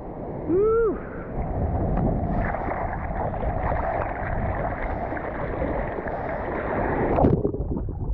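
Surf water rushing and strong wind buffeting the microphone, with a short call near the start whose pitch rises and then falls. The rushing hiss cuts off abruptly about seven seconds in.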